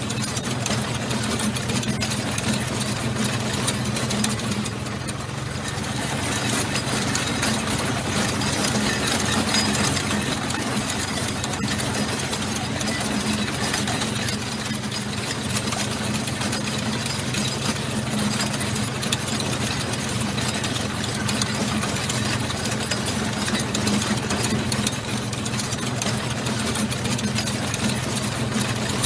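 Military tank on the move: its heavy engine running steadily under a dense, continuous rattle, dipping slightly now and then.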